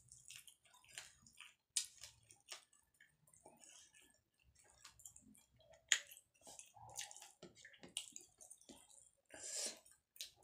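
Faint, close-up eating sounds: chewing and wet mouth smacks while eating rice, fish fry and dal by hand, with scattered sharp clicks.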